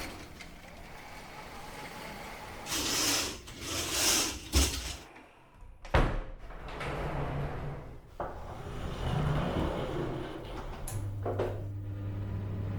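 Hotel room door and curtain sounds: two swishing slides, a knock, then a sharp door shut and a lighter knock. About 11 seconds in, a steady low hum of hotel room tone and air conditioning begins.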